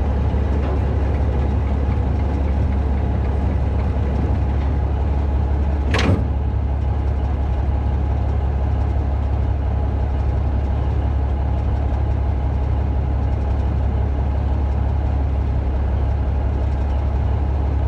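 Logging yarder's diesel engine idling steadily, with one sharp knock about six seconds in.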